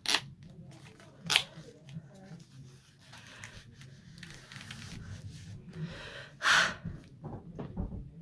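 Rustling and scraping handling noises as a plastic over-ear gaming headset is pulled on and pressed down over the head, with three short louder scrapes, the loudest about six and a half seconds in.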